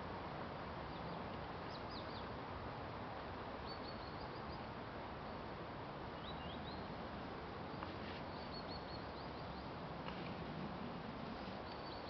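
Small stream babbling steadily, with a songbird chirping in short, high runs of notes every second or two.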